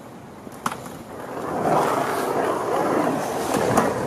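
Skateboard wheels rolling on a concrete bowl: a rough rolling noise that grows much louder about a second and a half in and stays loud, with a sharp click just before the second mark and another near the end.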